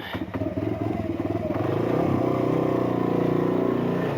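Lexmoto Adrenaline 125cc supermoto engine pulling away from idle, its revs rising over the first two seconds and then holding steady as the bike rides on.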